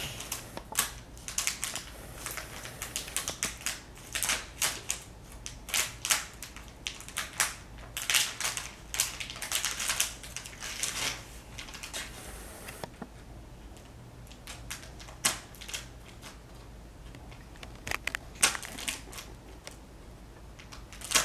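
Scissors snipping and a plastic bait bag crinkling as it is cut open, a dense run of irregular crackles and snips for about the first half, then only a few scattered clicks.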